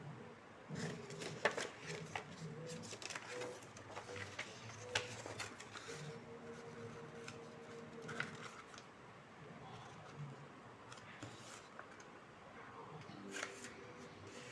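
Paper being handled and cut with scissors: irregular crinkles, rustles and snips, with a few sharper clicks.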